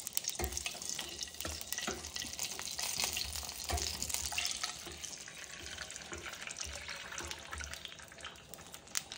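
Water being poured from a mug into a kadhai of hot oil with cumin, splashing with many small crackles, the noise easing toward the end.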